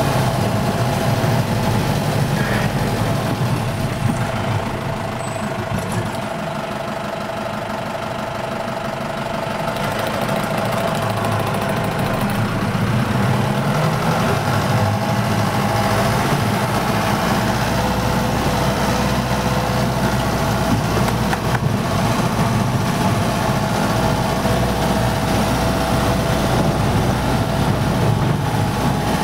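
A motor engine running steadily, with a constant hum and low rumble; it dips a little in level about a quarter of the way through, then runs on.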